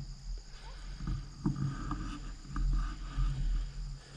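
Wind and movement rumble on a GoPro's microphone while moving along a trail, with a few sharp clicks about one and a half to two seconds in. A steady high insect drone runs underneath.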